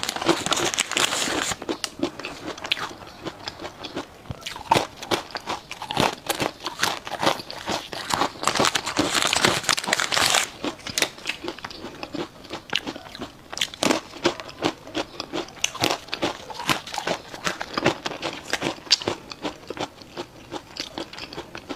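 Close-miked eating: a string of bites, crunches and chewing, with two longer stretches of dense crackling, one at the start and one about eight to ten seconds in.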